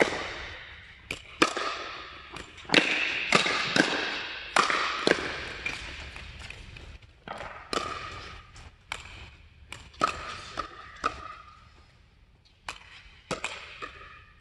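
Pickleball rally: paddles hitting the hollow plastic ball in a quick, irregular string of sharp pops, each one echoing in the large indoor hall. The hits come thickest in the first few seconds, pause briefly, then resume near the end.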